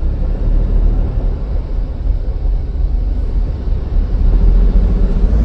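Daihatsu car engine running steadily, a loud low rumble with no clear squeal standing out.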